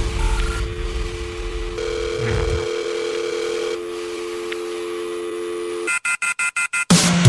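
Electronic background music: sustained synth tones held steady, over a low rumble that fades out a couple of seconds in. Near the end the music breaks into about a second of rapid stuttering chops, then a loud hit.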